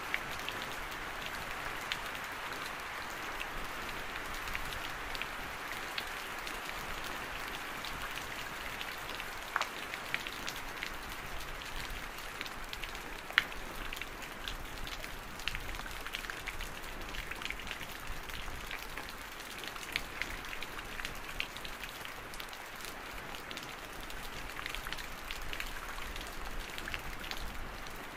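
Steady rainfall: an even hiss with scattered sharper drop strikes ticking through it, a few of them louder.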